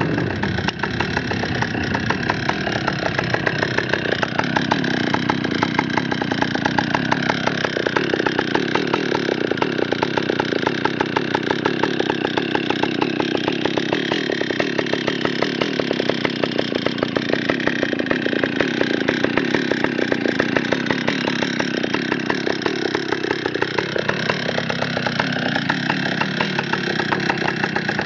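Stihl 048 Magnum two-stroke chainsaw running at full throttle under load, cutting through a large log. About 23 seconds in, its pitch rises as the engine speeds up.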